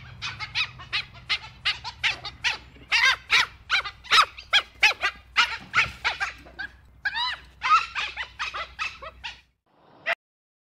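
Dhole (Asiatic wild dog) giving a rapid series of short, high-pitched squeaking calls, about three or four a second, over a low steady hum. The calls stop shortly before the end, with one more call after a brief pause.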